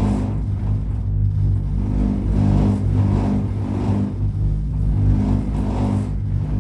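A vehicle engine running steadily, a low droning hum that swells and eases slightly.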